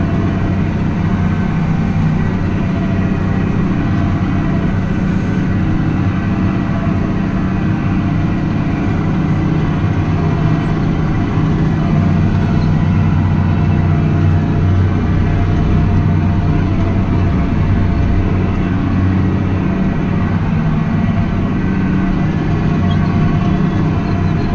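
Farm tractor engine running at a steady speed: a constant low drone with a faint steady whine above it.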